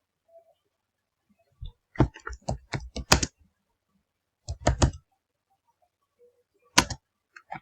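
Typing on a computer keyboard in short bursts: a run of keystrokes about two seconds in, a few more near five seconds, then one or two single taps near the end.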